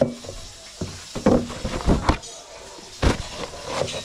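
Freshly cut raw potato chips rustling and knocking in a stainless steel bowl as they are rubbed dry in a towel, with several sharp knocks of the bowl, the loudest about 1, 2 and 3 seconds in. Music plays underneath.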